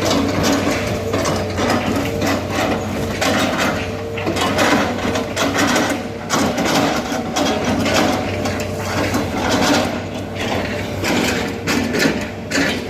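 Hitachi hydraulic excavator working: a steady diesel engine hum under a dense run of irregular clanks and knocks.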